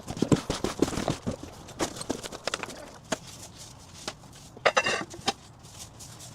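Irregular knocks, clicks and clatter of household items being handled and set down, with footsteps, busiest in the first half. One louder, brief rough noise comes just under three-quarters of the way through.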